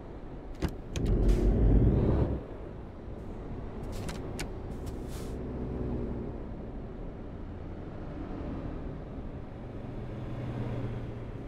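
Car driving along the road: a steady engine and road hum, with a loud low rumble lasting about a second and a half near the start and a few sharp clicks.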